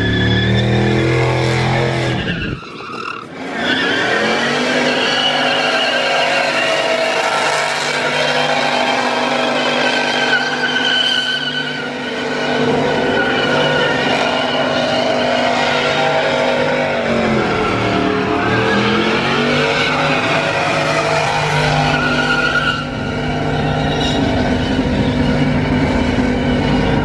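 Pickup truck engines held at high revs through burnouts, rear tyres spinning and squealing on the pavement. The revs sag and climb back about two-thirds of the way through.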